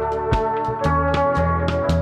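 Music with a steady drum beat over held notes and a bass line.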